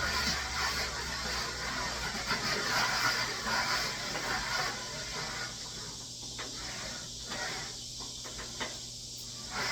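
Oil, sugar and corn kernels sizzling on a hot flattop griddle, a steady hiss with a few sharp clicks. The sizzle thins and breaks up from about halfway through.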